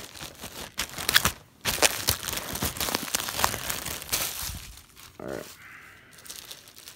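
Clear plastic poly bag crinkling and crackling as it is handled and pulled open, with dense rapid crackles for the first four seconds or so, then quieter rustling. A short vocal sound comes about five seconds in.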